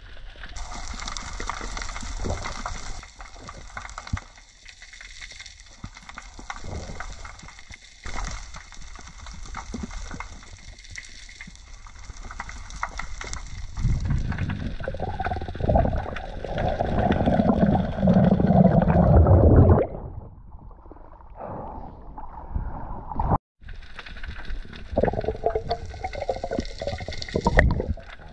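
Underwater sound picked up by a diver's camera in a waterproof housing: a muffled rush of water with gurgling, growing louder and deeper for several seconds past the middle. A sharp click comes near the end.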